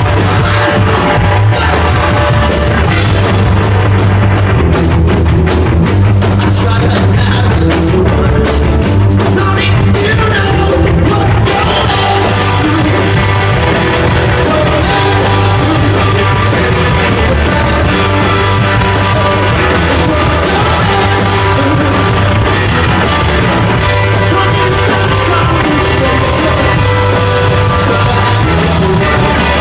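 Loud rock band playing live, punk-style, with drums, bass and guitar and a voice singing.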